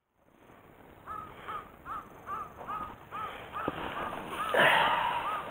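A bird calling over and over, a short clear note that rises and falls, repeated about three times a second. A louder rustling noise comes about four and a half seconds in.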